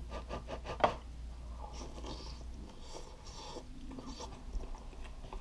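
Someone slurping instant cup ramen noodles off chopsticks and chewing them. There is a quick run of clicks in the first second, the last one sharpest.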